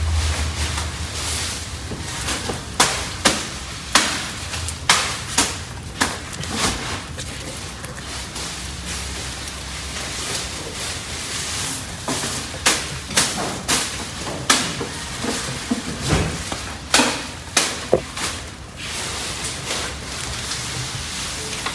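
Hairless guinea pigs (skinny pigs) eating freshly cut elephant grass on a wire cage floor: irregular sharp crunches and rustles as the stalks and leaves are bitten and pulled, coming in runs with short pauses between them.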